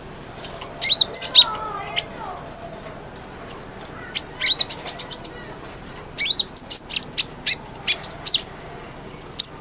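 Olive-backed sunbird (kolibri ninja) singing in a fast run of sharp, very high chirps and short falling notes, with a long high trill a little past the middle.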